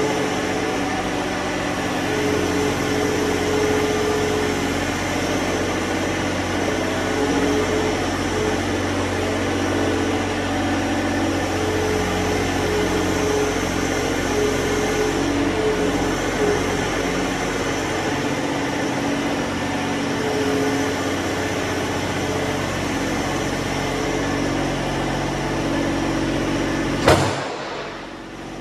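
John Deere 1023E compact tractor's three-cylinder diesel engine running steadily as the tractor manoeuvres. Near the end a sharp click, and the engine sound cuts off.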